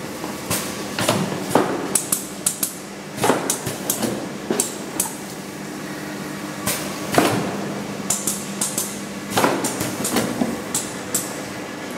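Hot melt glue box-sealing machine running, with a steady hum under irregular sharp clacks and knocks as its mechanism works and the boxes move along the conveyor.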